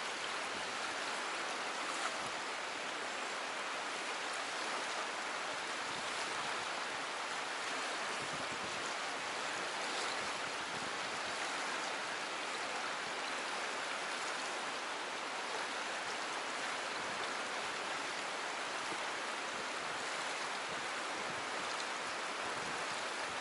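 Fast, churning river current rushing through a narrow rock channel: a steady, even rush of water.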